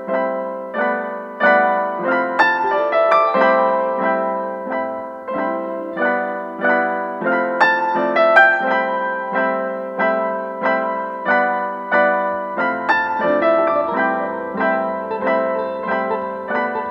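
Background piano music: a steady run of struck notes, each ringing and fading before the next.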